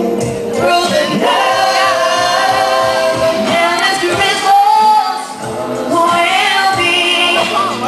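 Pop song with singing played over a sound system during a boy band's sound check.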